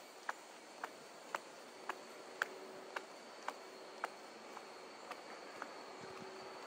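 Footsteps of a person walking at an even pace, about two short, sharp steps a second, with a faint steady high hum behind them.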